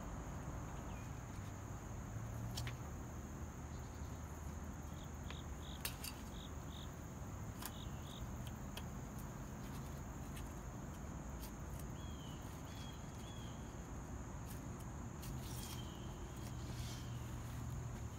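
Garden ambience dominated by a steady high insect trill. Short chirps come in quick little runs three times, and faint clicks sound now and then.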